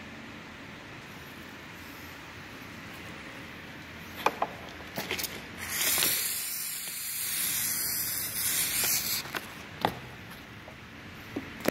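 A sprayer hissing out soapy leak-detection solution for about three and a half seconds, starting about five and a half seconds in, with a few sharp clicks just before and after. The soap is going onto the evaporator coil's return bends to find a refrigerant leak.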